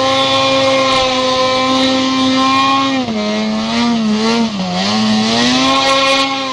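Snowmobile engine running at high revs. The revs sag about halfway through, bottom out briefly, then climb back up, with a rushing hiss during the dip.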